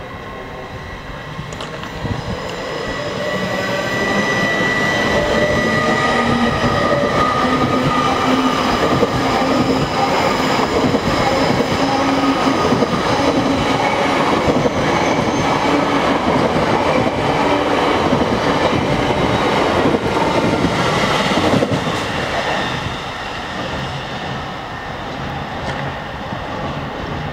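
A train going past on the tracks: rumble and clatter of wheels on rails with several steady whining tones. It builds about two seconds in, stays loud for most of the time and eases off a few seconds before the end.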